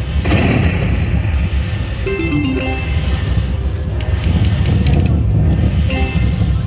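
Thor's Thunder slot machine playing its game music and sound effects during spins, over a heavy, steady bass rumble. A short falling run of tones comes about two seconds in.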